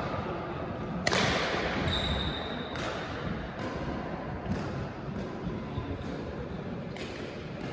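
Badminton rackets hitting a shuttlecock during a rally: sharp hits every one to two seconds, the loudest about a second in. A brief high squeak comes around two seconds in.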